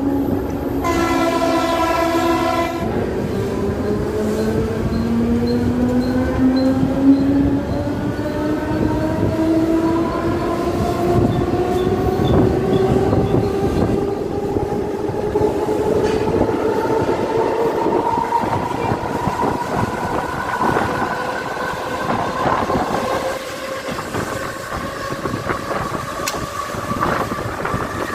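Mumbai suburban electric local train running, heard from its open doorway: a horn blast of about two seconds near the start. After it, a whine rises slowly and steadily in pitch as the train gathers speed, over the constant rumble and clatter of the wheels on the rails.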